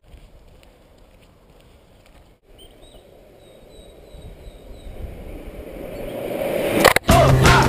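Outdoor ambience with birds chirping, then the rising rumble of longboard wheels on asphalt as a rider approaches, growing louder over the last few seconds. Music cuts in loudly near the end.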